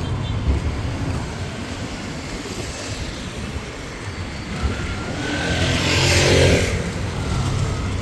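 Street traffic with a steady low rumble; a motor vehicle passes close, swelling to its loudest about six seconds in and then fading.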